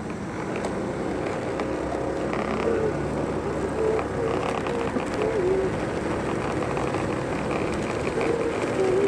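Steady road and wheel noise from riding along a paved street, with short squeaky chirps now and then.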